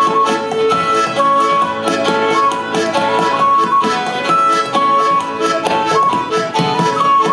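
An Irish traditional band playing a lively polka: fiddle and piano accordion carry the tune over strummed acoustic guitar and a bodhrán beat.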